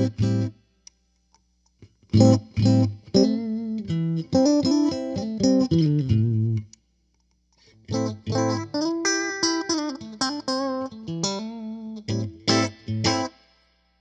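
1978 Alembic Series II electric stringed instrument played through its battery-powered onboard electronics: a few plucked notes, then two phrases of picked notes separated by a short pause about halfway through.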